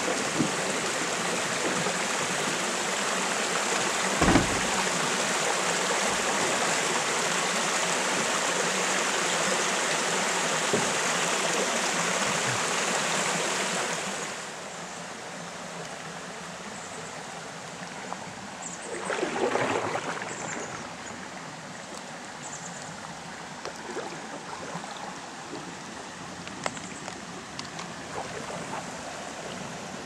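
Small waterfall pouring steadily into a lake, a loud rush of water that drops sharply in level about halfway through, leaving a quieter wash of water. A low thump comes a few seconds in, and a brief swell of splashing comes about two-thirds of the way through.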